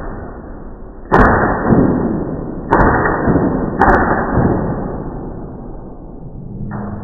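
Three heavy thuds about a second and a half apart, each trailing off slowly.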